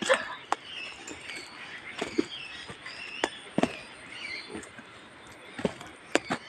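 Footsteps on a dirt path: irregular thumps and sharp clicks a second or so apart, over a quiet outdoor background with faint high chirping.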